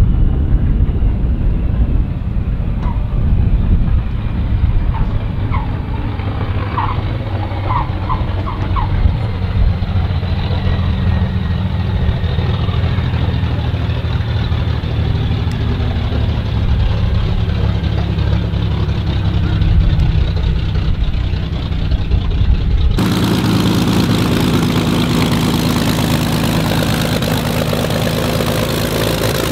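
Messerschmitt Bf 109 fighter's V12 piston engine running as the plane moves along the runway, a steady drone whose pitch slowly falls. After a sudden cut about three-quarters of the way through, the engine is heard close up, idling as the fighter taxis.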